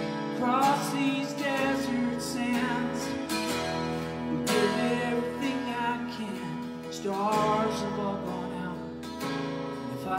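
A man singing with a strummed acoustic guitar, the voice holding long wavering notes over steady chords.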